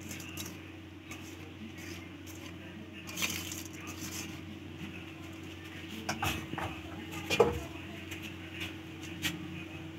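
Hot parboiled rice being spread over beef in a metal pot: a few light scrapes and clicks against the pot, over a steady low hum.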